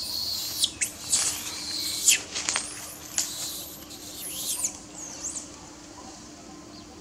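Monkeys giving a string of loud, high-pitched shrieks and squeals that slide up and down in pitch, dying away about five seconds in.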